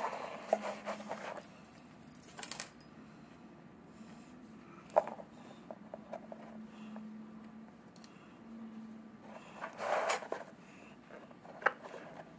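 Hands handling a stiff leather panel, with short rustles and three sharp clicks of small metal bag feet being fitted, over a faint steady hum.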